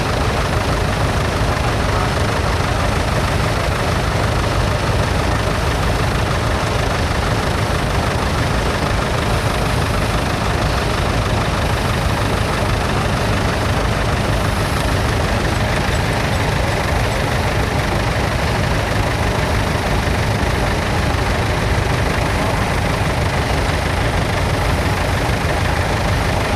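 Vintage tractor engine running steadily under load, close and loud, with no change in pace.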